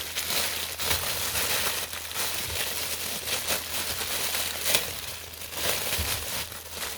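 Packaging crinkling and rustling as it is handled and pulled open during unboxing, with irregular small crackles and one sharper crackle about three-quarters of the way through.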